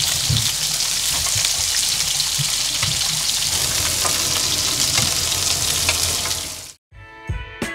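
Red mullet and shrimp sizzling in hot oil on an electric grill pan: a steady, loud frying hiss with light clicks of metal tongs as the pieces are turned. The sizzling cuts off suddenly near the end.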